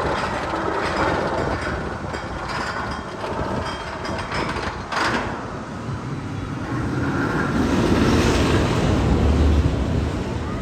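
Roller coaster train rumbling along its steel track, with one sharp clank about halfway through and the rumble growing louder near the end.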